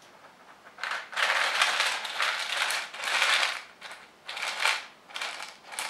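Coffee beans rattling and crunching against the thin plastic of a cut PET bottle as a mouse scrambles over them, in uneven bursts that start about a second in, the longest in the first few seconds.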